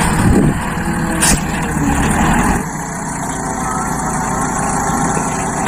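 Loaded dump truck's engine running steadily as it works on a dirt site. There is one sharp click about a second in, and the low rumble thins out about two and a half seconds in.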